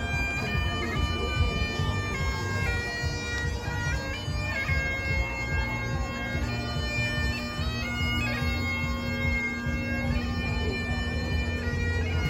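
Bagpipes playing a tune: held notes stepping from one to the next over a steady drone, with a constant low rumble underneath.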